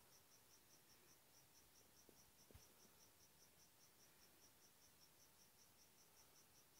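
Near silence except for a faint, high chirping pulsed evenly about five times a second, as of a cricket, with a faint tap or two about two and a half seconds in.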